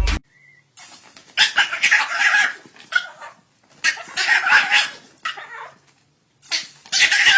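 A pet animal gives three harsh, noisy cries, each about a second long and about two and a half seconds apart.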